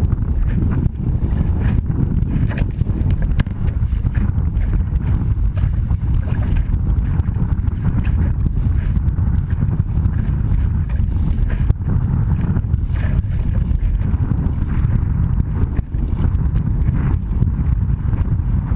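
Strong wind buffeting a deck-mounted microphone over the rush of water past an OK Dinghy's hull, with irregular slaps as the hull hits choppy waves.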